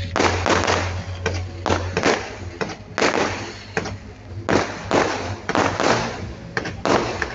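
Fireworks display: an irregular string of aerial shell bangs, about two a second, each trailing off in a crackle, with a short lull near the middle.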